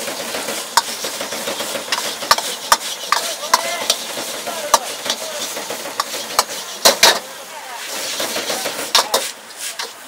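Metal ladle scraping and clanging against a wok as egg fried rice is stir-fried, over a steady sizzle. The clangs come irregularly, about one or two a second, with the loudest cluster about seven seconds in.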